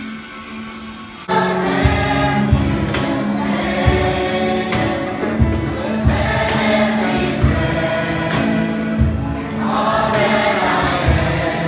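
Group of voices singing a song in parts, with instrumental backing and a steady low beat, cutting in suddenly about a second in.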